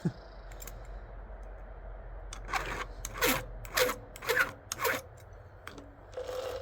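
A hand file rasping across the teeth of a chainsaw chain during sharpening: about five quick strokes roughly half a second apart in the middle, then one more near the end, each with a faint metallic ring.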